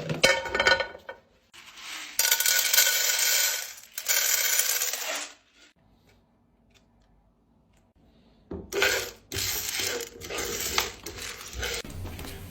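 Dry popcorn kernels poured into a metal pot, rattling with a metallic ring in three pours. After a pause comes a run of lighter clicks and taps.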